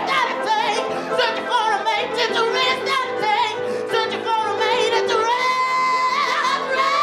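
A woman singing a powerful solo into a microphone, with wavering vibrato runs and a long held note near the end.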